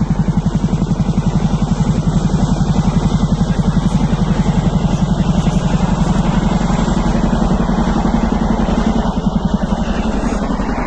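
Helicopter rotor and engine running close by, a loud, rapid, even pulsing of the blades.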